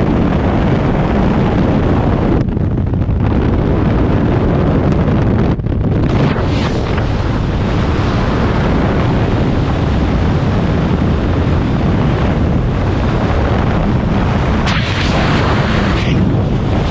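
Loud, steady rush of freefall wind buffeting a skydiver's camera microphone, turning hissier for a moment near the end.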